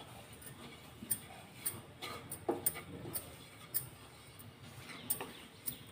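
Wooden spatula scraping and tapping on a metal pan while stirring wheat flour roasting in ghee: light, irregular ticks and scrapes, several a second at times.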